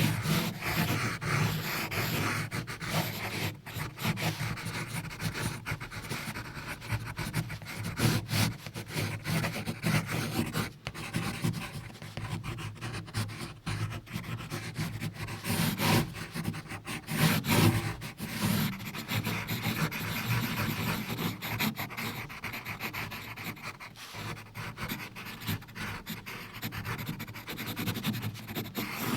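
Pencil lead scratching and rubbing across paper in quick, uneven strokes, as in sketching or shading.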